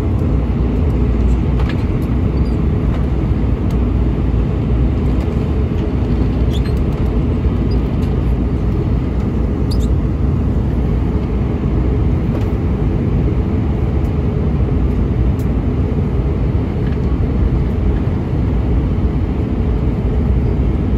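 Steady cabin roar of an Airbus A320-232 in descent, heard from a window seat beside the wing: low, even rumble of airflow and its IAE V2500 turbofan engines.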